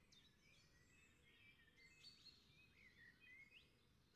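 Faint birdsong: several small birds chirping and twittering in short rising and falling calls, over low steady background noise.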